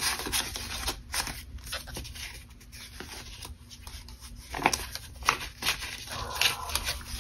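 Paper banknotes being handled and counted by hand, with crisp rustles and flicks of the bills as they are fanned out and slipped into a binder envelope.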